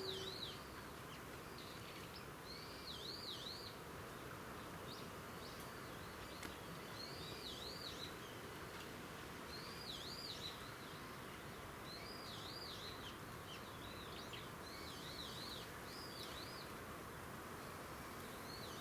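Small birds singing, one repeating a short phrase of quick dipping-and-rising whistles every couple of seconds over a faint steady hiss. The last chord of a Yamaha MX100M player piano fades out at the very start.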